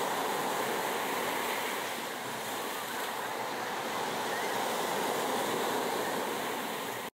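Steady rush of ocean surf, swelling and easing slowly, that cuts off suddenly at the very end.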